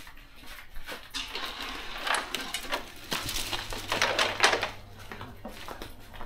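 A clicking, rattling clatter lasting a few seconds, loudest twice in the middle, from a strand door curtain swinging as someone walks through it carrying a lidded pot, with footsteps.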